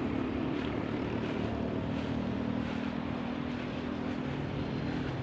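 A steady engine drone: a low hum that holds one pitch throughout.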